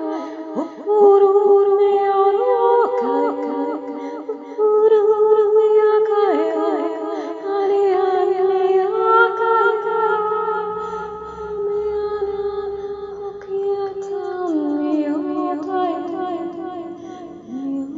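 A woman singing a wordless, soothing lullaby-like 'light language' vocal, with long held notes that slide and bend between pitches.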